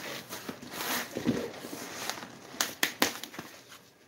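Vinyl boat-seat cover rustling and crinkling as it is handled and pulled away from the seat, with a few sharp clicks about three seconds in.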